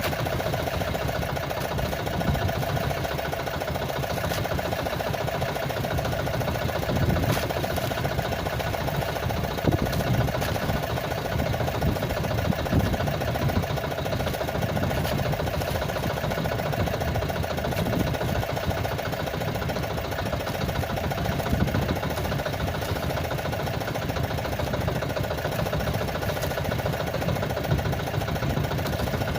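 A small fishing boat's engine running steadily, with a few faint knocks now and then.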